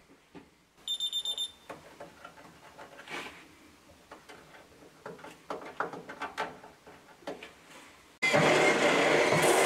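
A quick run of high-pitched beeps about a second in, then faint clicks and knocks of parts being handled. About eight seconds in, a cordless drill starts running steadily with a step drill, boring through the car's steel inner sill for riv nuts.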